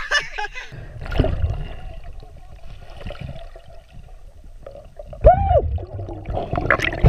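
A camera plunging under a river's surface about a second in, then muffled underwater water noise with a low rumble and a faint steady hum. A muffled voice comes through partway through and again near the end.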